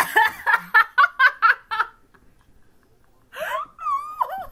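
A girl laughing in a quick run of about eight short 'ha's. About three and a half seconds in, a drawn-out voice slides up and then down in pitch.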